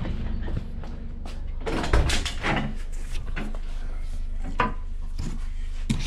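Knocks and clunks of metal car parts being handled and set down, the loudest about two seconds in, over a steady low hum.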